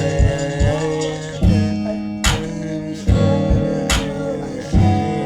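A trap-amapiano ('trapiano') beat playing back: a plucked, guitar-like melody over deep bass kicks, with a sharp percussion hit about every second and a half.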